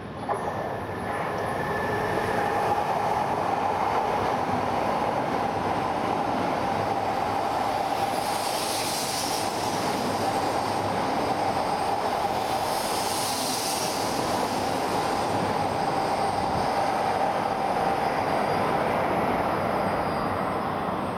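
E1 series 'Max' double-decker Shinkansen running through a station platform without stopping: a loud steady rush of wheels and air with a steady ringing note. Two brief hissing swells come near the middle, and the sound eases off near the end as the train leaves.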